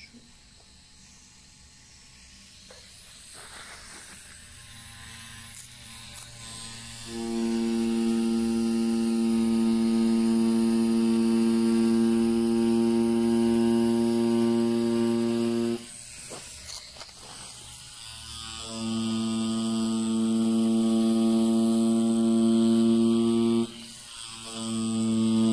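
Cheyenne Hawk Pen rotary tattoo machine running with a steady electric hum. It starts after several quiet seconds, then stops and starts again twice.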